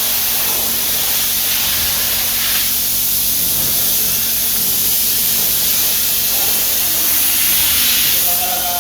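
Espresso machine hissing loudly and steadily over a steady low hum; the hiss thins a little about two and a half seconds in.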